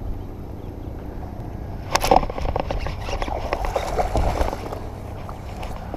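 Wind rumbling on the microphone of a small action camera. From about two seconds in, a baitcasting reel clicks and rattles as it is handled and cranked.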